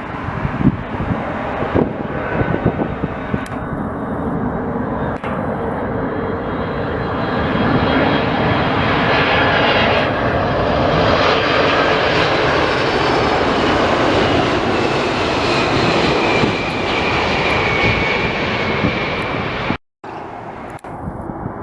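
Jet airliner engines passing close by. The noise swells about a third of the way in, and its fan whine slides down in pitch as the aircraft goes past. The sound breaks off briefly near the end.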